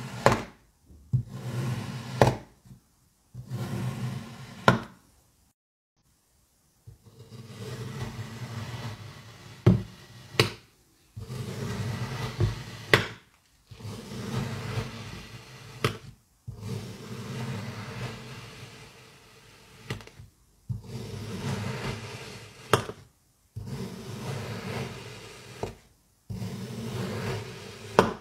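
Knife slicing through packed kinetic sand over and over: gritty crunching strokes a second or two long, with several sharp clicks among them and a short silent gap about six seconds in.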